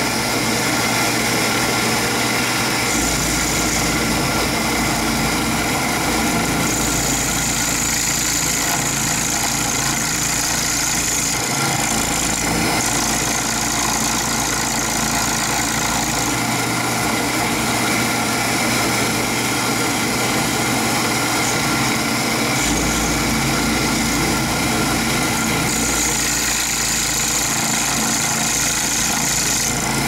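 Milling machine running, its end mill cutting down into the brass body of a Hurd padlock to open the pin chambers. A steady motor sound, with a high cutting whine that comes and goes several times.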